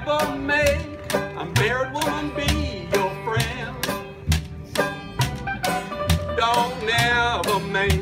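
Old-time string band playing a tune on banjo, guitar and washtub bass, with a steady beat of sharp picked strokes about twice a second over a low bass line.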